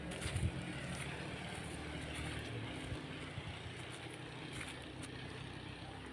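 A motor engine running steadily with a low hum, with a brief louder thump about half a second in.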